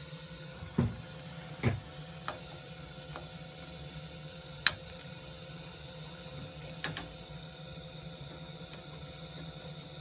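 Steady low hum of an old Hydrotherm gas-fired boiler running, its burner burning too much fuel with carbon monoxide near 4,000 ppm, broken by a few sharp clicks and knocks, the loudest about four and a half seconds in.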